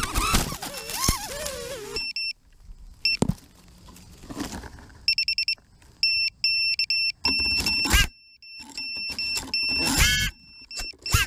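A 6S FPV quadcopter stuck upside down in a tree: its brushless motors whir up in short bursts with rising and wavering pitch, the propellers beating against the leaves, as turtle mode is tried to flip it free. Between the bursts the drone's beeper sounds high beeps in short repeated pulses, the arm/disarm signal.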